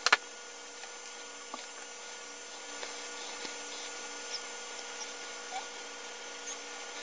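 Handling noise of a plastic plug and a screwdriver on a wooden table: one sharp click just after the start, then a few faint ticks and taps, over a steady background hum.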